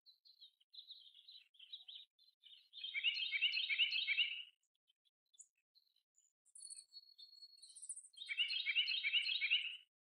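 Common starling singing: varied chattering notes, then two loud, rapid rattling phrases about five seconds apart, with a thin held whistle and high clicks between them.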